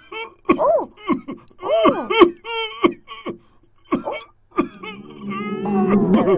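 A person coughing and moaning in a string of short bursts, each rising and falling in pitch. Near the end the sounds run together into a longer, denser stretch.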